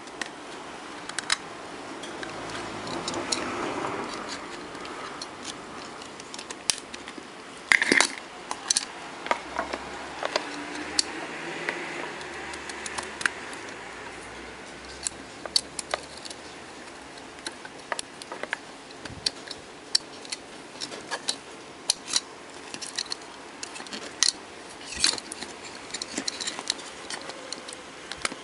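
Irregular small clicks and taps from handling a wireless microphone's circuit board and plastic housing on a workbench, over a steady faint hiss.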